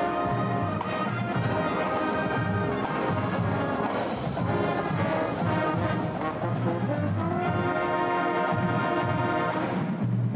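Marching band playing: trumpets, trombones and saxophones sounding held chords over a steady marching drum beat.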